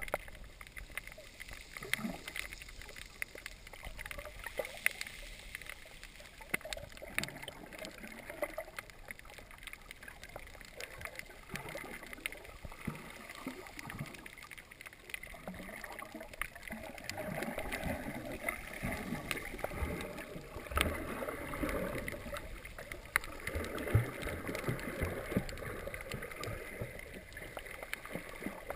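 Water moving, recorded underwater: muffled sloshing and gurgling with scattered faint clicks, growing louder in the second half with a couple of sharper knocks.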